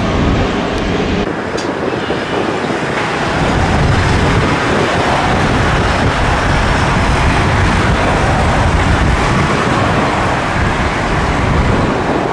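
Steady loud roar of jet airliner engines, with wind rumbling on the microphone.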